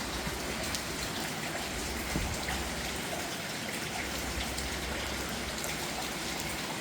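Steady rain: an even hiss with scattered ticks of drops.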